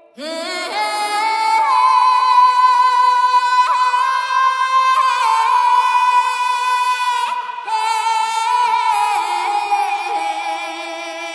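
Music led by a high, wordless singing voice holding long notes, sliding up into them with a slight waver.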